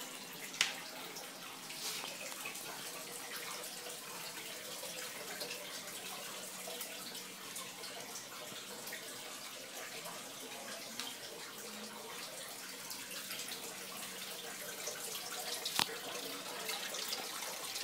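Water running steadily in a caiman crocodile tank, an even splashing trickle, with two faint knocks, one about half a second in and one near the end.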